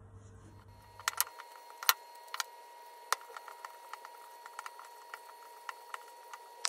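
Dough being divided with a metal bench scraper and shaped by hand on a floured silicone mat: scattered sharp taps and knocks, the loudest about two seconds in and at the very end, over a faint steady tone.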